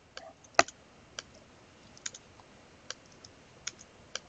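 Computer keyboard keys pressed one at a time: a dozen sharp, irregular clicks, the loudest about half a second in.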